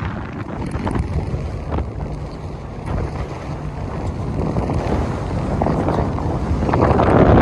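Pontoon boat under way on open water: wind buffeting the microphone over the rush of water and the boat's running noise, growing a little louder near the end.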